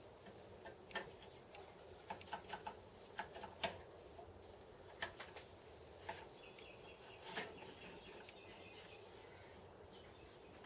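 Faint steady hum of a shaft spinning in new bearings while they are run in, with scattered light clicks and ticks at irregular intervals.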